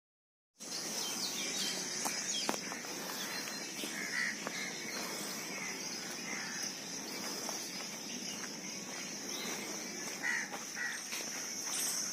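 Park ambience that starts after about half a second of silence: a steady high insect buzz with a few short bird calls, among them crow-like caws, and faint footsteps on a dirt path.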